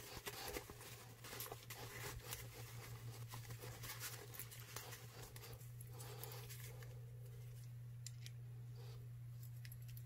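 Faint rustling of a paper towel wiping a small brass oiler part, then light clicks of its small metal chain and clip being handled, over a steady low hum.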